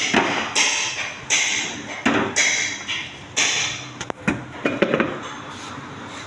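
Short repeated bursts from a pneumatic shop tool, about one a second, with sharp metallic clicks and knocks between them, as the original transmission is being taken apart.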